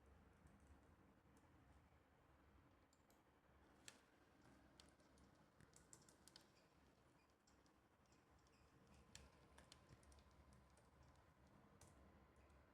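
Near silence: faint, irregular clicks of computer keys being pressed over a low, steady room hum.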